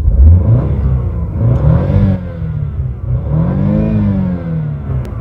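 A BMW car's engine revved twice while in park, the pitch climbing and falling back with each rev, the revs reaching about 6,000 rpm.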